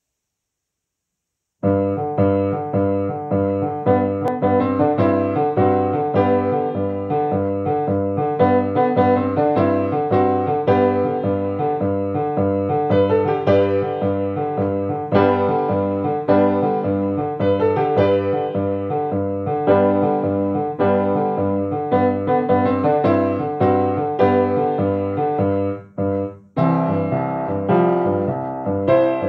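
Grand piano played solo, a steady rhythm of struck notes over a bass line, starting about a second and a half in. The playing breaks off briefly near the end, then picks up again.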